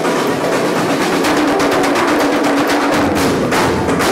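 Lively percussion music, drums played on a rack of small drums and hand drums: a fast run of drum and rim hits over a held note. A deeper, heavier beat comes in about three seconds in.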